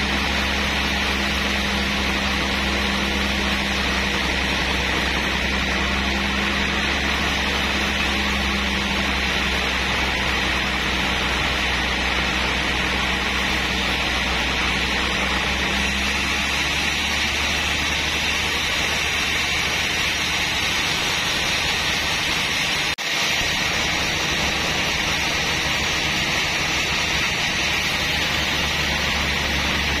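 Band sawmill running steadily with a constant loud machine noise as it saws a trembesi (rain tree) log. A low hum drops out about halfway through, and the sound breaks off for an instant about three quarters of the way in.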